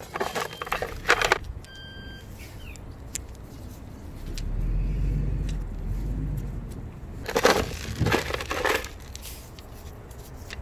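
Crunching and rustling of a latex-gloved hand working potting soil and small pebbles around a plant in a terracotta pot, in two short spells: one in the first second and a half, another about two-thirds of the way through. Between them a low rumble swells and fades.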